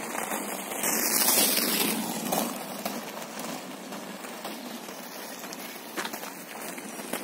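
Wind buffeting the microphone as a rough, crackling rush, swelling loudest about a second in and then settling to a steady hiss, with a few faint clicks near the end.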